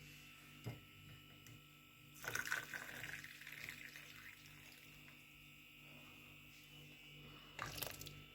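Hot liquid being poured for about two seconds, starting about two seconds in, with a shorter splash near the end and a light knock about a second in.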